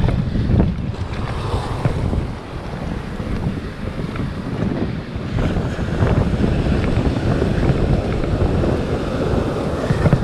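Wind buffeting the microphone over surf breaking and washing across a rocky shore, a continuous rough rushing noise that swells and eases.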